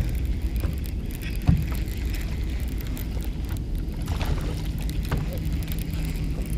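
Low steady rumble of wind and water around a boat, with a faint steady hum and light clicks and rattles from a baitcasting rod and reel being worked while a hooked bass is fought. One louder thump comes about a second and a half in.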